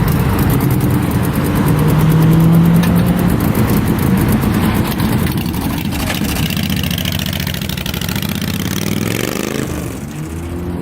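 Car engines running and revving as cars pull away, with one engine's pitch rising in revs near the end.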